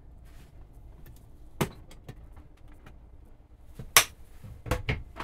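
Clicks and knocks of cabinet doors and latches being opened and shut in a van's built-in kitchen cabinetry. One knock comes about one and a half seconds in, the loudest about four seconds in, then two quick ones close together near the end, over a low steady hum.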